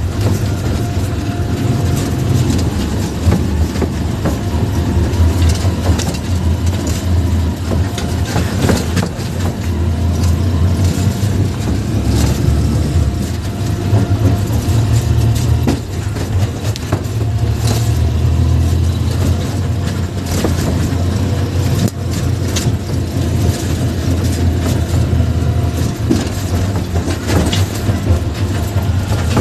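A car driving along a road: a steady low rumble with scattered knocks and rattles.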